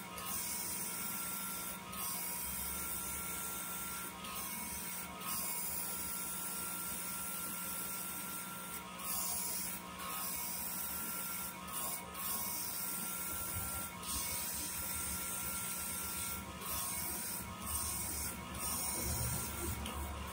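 Small CNC machine carving a rubber stamp. It gives a steady high hiss that drops out briefly again and again, over a low hum, with a whining tone that comes and goes in stretches as the machine moves.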